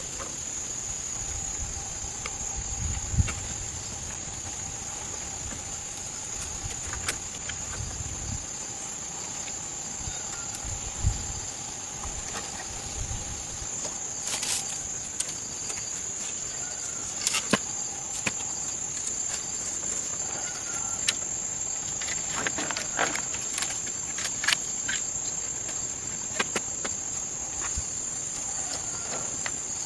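Insects chirring in one steady, high-pitched drone, with scattered light clicks and knocks over it.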